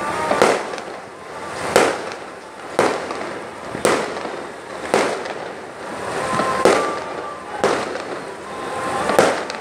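A run of sharp bangs or cracks, about one every second or so, each following a rush of noise that swells up to it.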